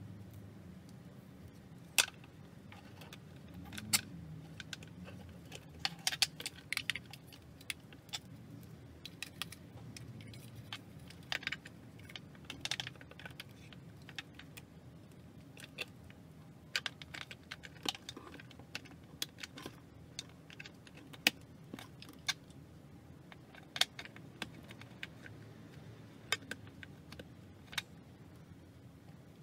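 Irregular clicks, taps and light clatter of hard plastic parts being handled: a 3D-printed cover being fitted over a 3D printer's motherboard and fan, and ribbon cables being plugged in. A faint low hum runs underneath.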